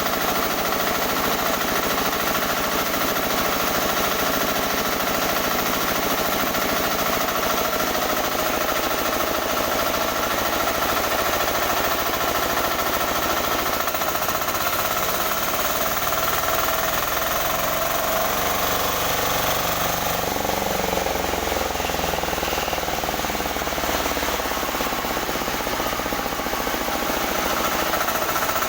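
Newly assembled sawmill machine running on a test run, a loud, steady mechanical clatter with fast, even pulsing. Its low rumble turns rougher about halfway through.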